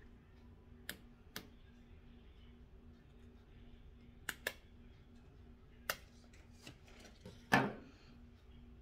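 Scissors snipping a glitter ribbon: a handful of sharp, separate clicks spread over several seconds, with a louder knock about seven and a half seconds in. A faint steady hum runs underneath.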